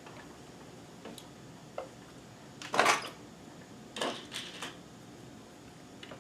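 Small clicks and light metal clatter from a needle being changed on a sewing machine: a couple of faint taps, a louder clatter about three seconds in, and a short cluster of clicks a second later.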